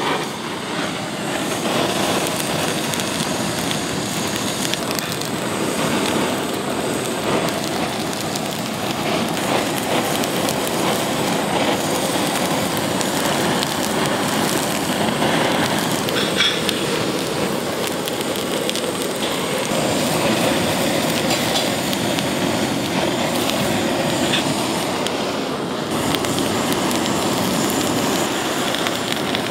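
Two handheld butane torches firing together, a steady loud flame noise as they sear the tops of nigiri sushi.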